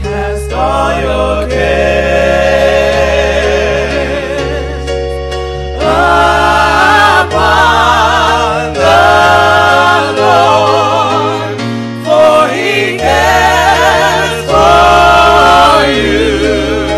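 Gospel music: voices singing slow phrases with strong vibrato over sustained low chords.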